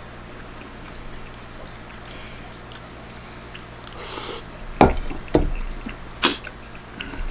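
A person slurping up a mouthful of meat-sauce spaghetti about four seconds in, followed by a few short, sharp sounds over the next two seconds.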